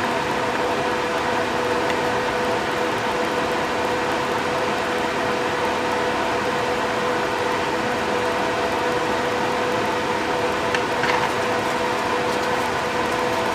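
Spray booth ventilation fan running: a steady rushing hum with a constant drone. A couple of faint clicks about eleven seconds in.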